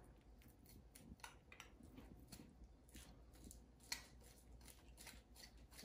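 Faint scraping and clicking of a knife worked under the membrane on the back of a raw rack of pork ribs, with the blade ticking against a plastic cutting board. One sharper click comes about four seconds in.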